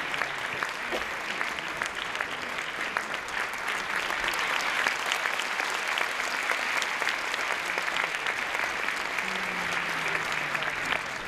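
Theatre audience applauding, a dense, steady clapping of many hands.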